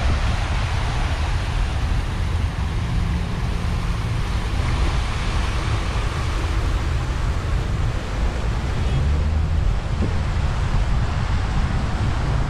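Wind buffeting the microphone with a heavy, uneven rumble, over a steady rush of water cascading from a fountain over rocks.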